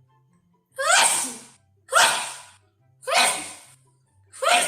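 A woman sneezing four times in a row, about one sneeze a second, each a sharp burst that quickly falls away.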